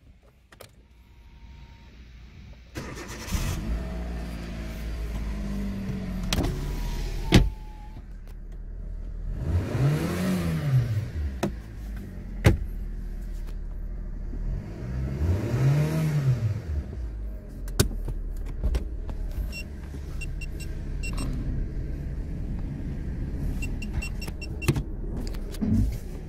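A 2009 Kia Pride's engine, heard from inside the cabin, comes to life about three seconds in and runs steadily. It is revved twice, the pitch rising and falling back each time. Sharp clicks come now and then, with a run of regular clicks near the end.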